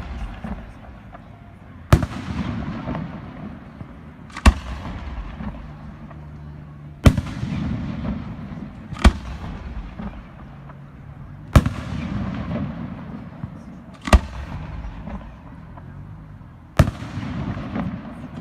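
Fireworks display: aerial firework shells bursting in a regular series of seven sharp bangs, about one every two to two and a half seconds. Each bang trails off in a rolling echo.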